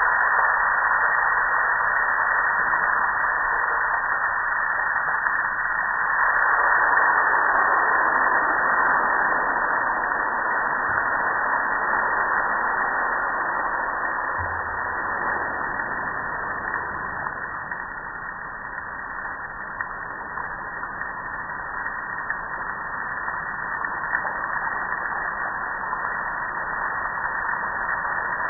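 Steady hiss of a water spray hitting a gas grill and the wet patio, swelling and easing in level as the stream moves.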